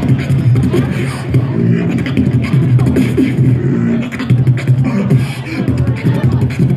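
Beatboxing into a handheld microphone, amplified through a PA speaker: rapid percussive mouth clicks and kicks over a steady low bass.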